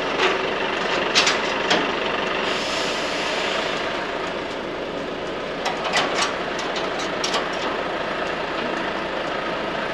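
Diesel lorry engine running steadily, with a few sharp clicks and knocks about a second in and again around six to seven seconds in.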